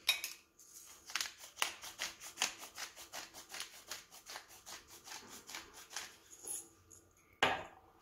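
Hand-twisted pepper mill grinding black pepper: a quick run of rasping clicks, several a second, then a louder short knock near the end.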